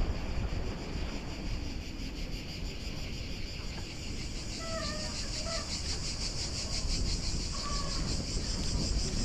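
Insects drone steadily in a high, fast-pulsing buzz in the park trees, over a low rumble of wind on the microphone from the moving bike. A bird gives a few short whistled calls around the middle.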